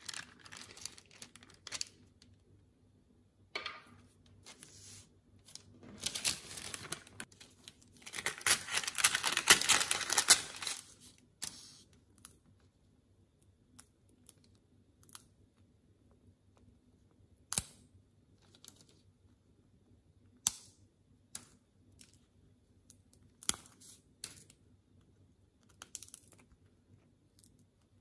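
Dalgona (honeycomb toffee) being handled on parchment paper: a few seconds of loud paper crinkling and rustling in the middle, then single sharp snaps and clicks every few seconds as the brittle candy is broken.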